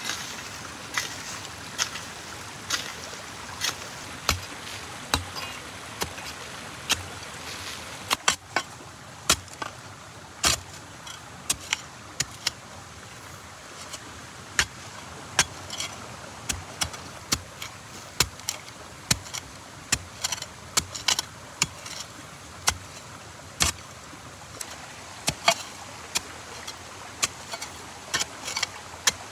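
Irregular sharp knocks, about one or two a second and uneven in strength, over a steady rushing noise.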